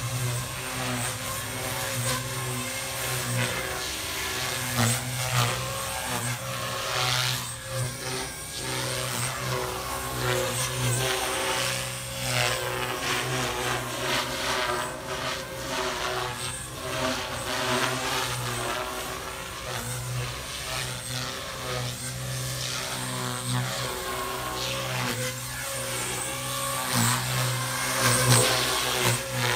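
JR Forza 450 radio-controlled helicopter in flight: its rotor and motor run continuously, the sound swelling and fading as it banks and manoeuvres.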